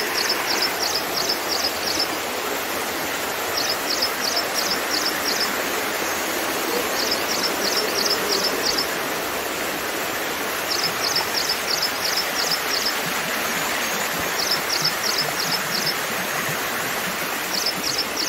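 Shallow mountain stream cascading over rocks, a steady rushing splash. Over it, short runs of quick, high chirps repeat about every three to four seconds.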